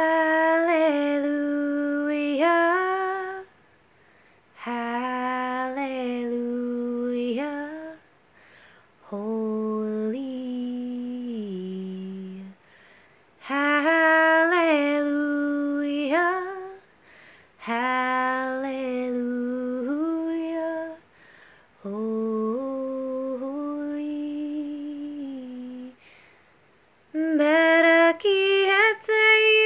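A woman singing solo and unaccompanied, in slow phrases of a few seconds each on long held notes, with short pauses for breath between them.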